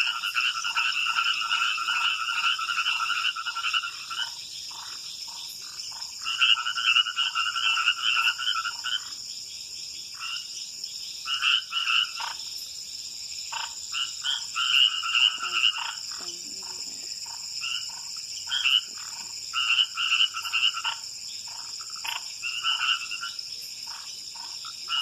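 Night chorus of frogs calling in repeated bouts of a few seconds each, one overlapping another, over a steady high-pitched whine.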